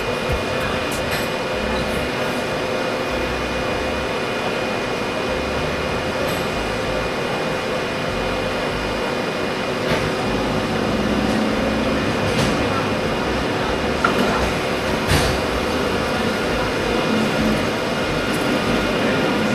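Steady machine running, with several steady tones over a constant noise and a few light clicks and knocks.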